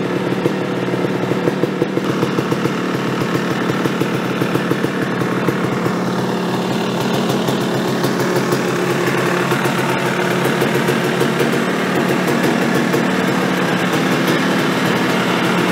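Big-bore 500cc single-cylinder two-stroke engine of a Gas Gas MC500 dirt bike (BRC Racing conversion), idling steadily through its handmade HYGGE cone pipe.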